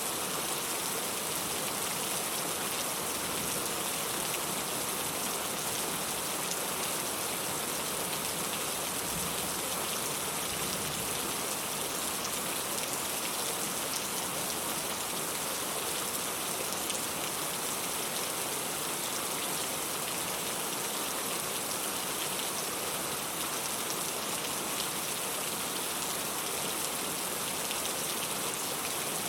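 Steady, even rain, with scattered faint ticks of drops.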